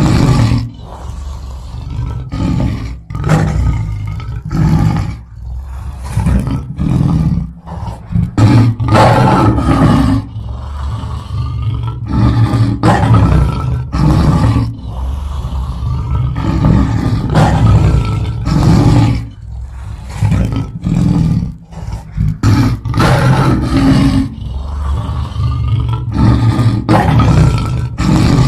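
Lion roaring: a long series of loud roars with short breaks between them.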